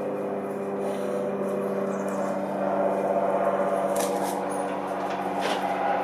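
A steady machine-like hum with several even tones, broken by a couple of brief sharp clicks about four and five and a half seconds in.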